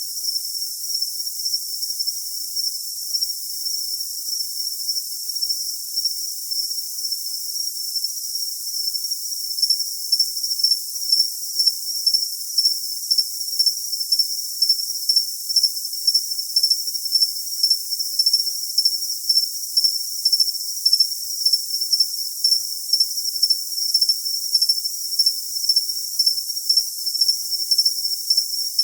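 Crickets chirping in a steady, high-pitched trill. About ten seconds in, a second, higher chirp joins, pulsing about twice a second.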